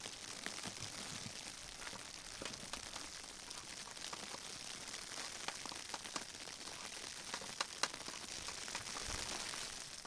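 Steady rain: an even hiss with scattered drops ticking irregularly on a surface, one louder tick near the end.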